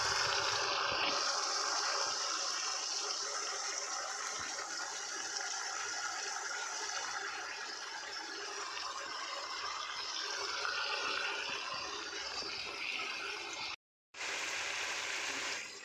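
Tomato paste masala sizzling and bubbling in oil in an aluminium kadhai, a steady frying hiss as the tomatoes' water cooks off. It breaks off for an instant near the end.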